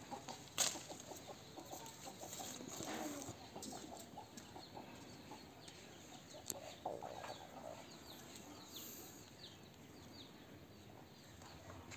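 Chickens clucking faintly, with one sharp knock about half a second in.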